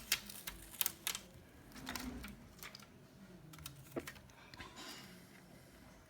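Small tools and phone parts clicking and tapping during a smartphone repair: irregular sharp clicks, several in quick succession in the first second or so, then scattered ones.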